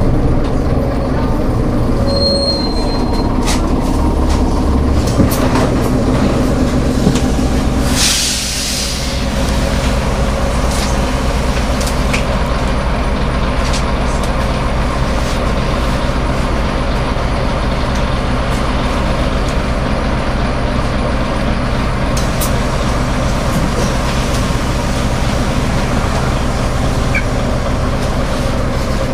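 Karosa Citybus city bus heard from inside the cabin, its engine running as it comes to a stop, with a brief high squeal about two seconds in. About eight seconds in the bus's compressed-air system lets out a sharp hiss lasting about a second, and the engine then idles steadily while the bus stands.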